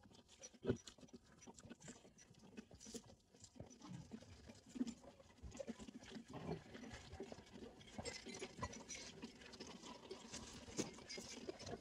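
Sheep and lambs shuffling about: a soft patter and rustling with scattered small knocks. It grows busier from about six seconds in.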